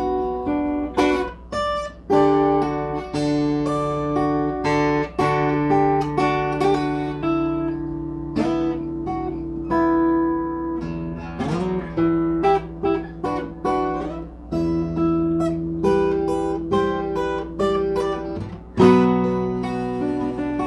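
Plucked string instrument played solo, chords and single notes ringing and changing every second or two, with a few sliding notes about eleven seconds in.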